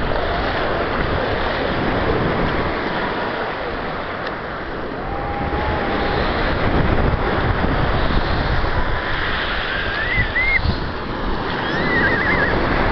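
Steady rushing of sea surf mixed with wind buffeting the microphone, swelling and easing slowly. A few faint high wavering cries come through the noise near the end.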